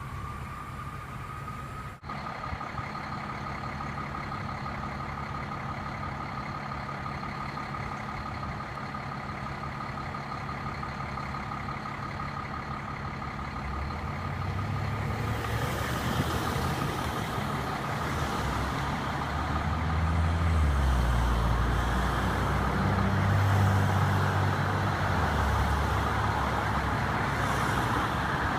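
Federal Q2B mechanical siren winding up and then held at a steady high pitch. A fire truck's engine rumble joins it about halfway through and grows louder as the truck comes closer.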